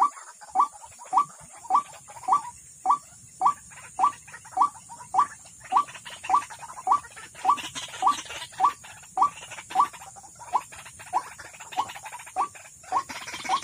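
White-breasted waterhen call, a short rising note repeated evenly about twice a second, used as a lure to draw the birds to the trap.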